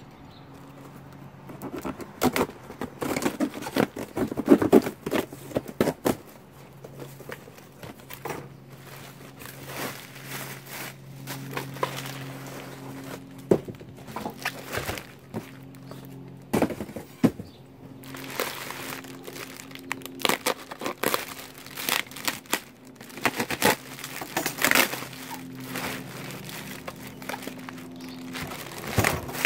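Plastic packing, air pillows and bubble wrap, crinkling and rustling in irregular bursts as it is handled and pulled from a cardboard box, with scattered knocks and scrapes of the box.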